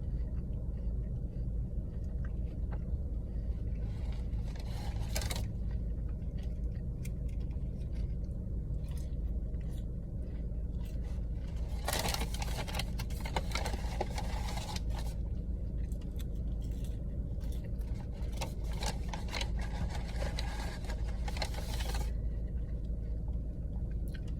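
Eating sounds at close range: chewing and the crinkling and rustling of paper food wrappers being handled in bursts, over a steady low hum.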